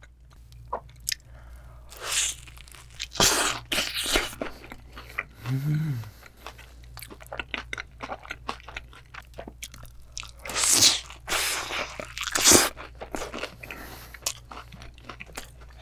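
Close-miked bites into sauce-coated Korean seasoned fried chicken: the crispy batter crunches and crackles, followed by chewing. The loudest crunching bites come about two seconds in, from three to four and a half seconds, and from about ten and a half to twelve and a half seconds.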